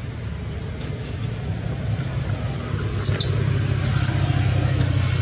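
Steady low engine rumble, with a few brief high-pitched squeaks about three to four seconds in.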